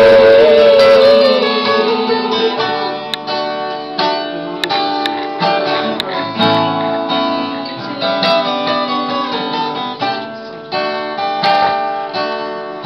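Acoustic guitar strummed through an instrumental gap in a worship song, with the singers' last held note dying away in the first second or so.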